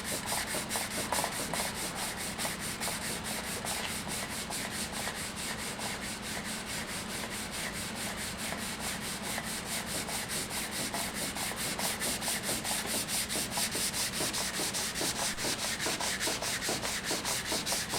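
Hand wet-sanding of a wooden stave drum shell with sandpaper wrapped around a rubber pad: a steady run of quick back-and-forth rubbing strokes, several a second.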